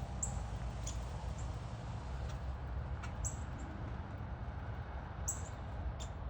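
Wild birds giving short, very high single chirps, about four spread through, over a steady low background rumble.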